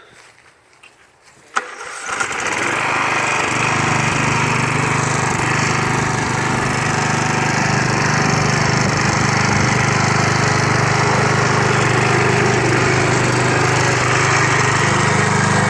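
Lawn mower engine starting: a sharp click about a second and a half in, then the engine catches and runs loud and steady.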